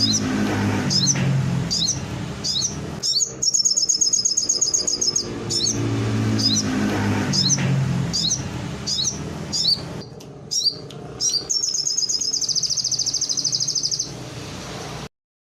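Songbird singing a canary-style song: quick repeated chirps broken by long, fast trills. Lower sound comes and goes underneath, and everything cuts off suddenly near the end.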